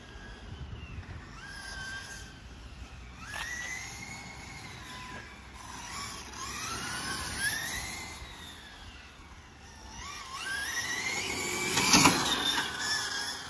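Electric motor whine from radio-controlled touring cars lapping a track, rising as they accelerate and falling as they brake into corners. It is loudest near the end as one car passes close.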